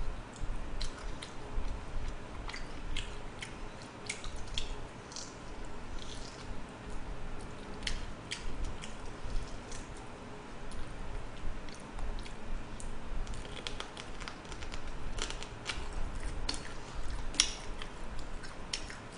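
A person biting and chewing jokbal, Korean braised pig's trotters, close to the microphone: irregular short smacking clicks of mouth and teeth, scattered throughout.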